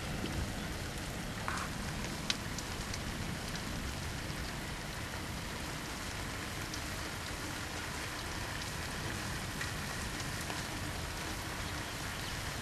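Steady rain falling: an even hiss with a few scattered light ticks.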